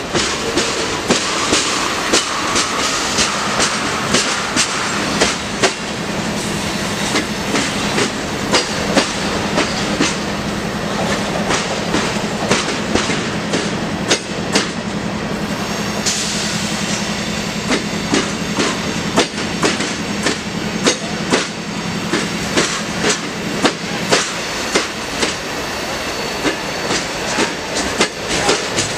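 Railroad cars rolling past, their wheels clacking over rail joints in a steady run of sharp clicks over a continuous rolling rumble.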